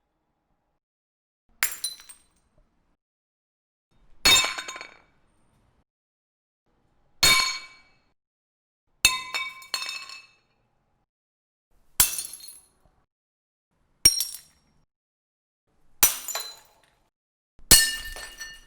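A series of about eight separate glass-breaking sound effects, each a sharp crash followed by a short tinkle of falling shards, with silence between them.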